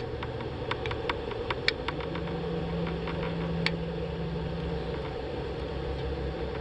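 A steady low hum of a distant engine, with a held low tone for a few seconds in the middle. Light sharp clicks and ticks are scattered through the first two seconds.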